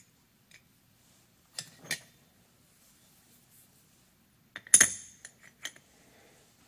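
Small steel parts of a Monarch 10EE lathe's cross-slide hand wheel assembly clinking together as they are fitted by hand: two light clicks about two seconds in, then a louder cluster of clinks a little before five seconds in, the loudest with a brief metallic ring.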